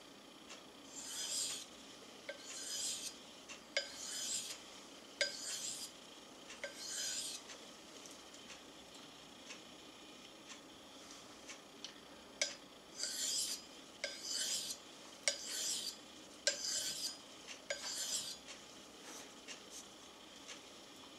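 Knife blade stroked across a sharpening stone: a series of short rasping scrapes, each starting with a small click, a little over one a second. The strokes pause for a few seconds midway, then a second run follows.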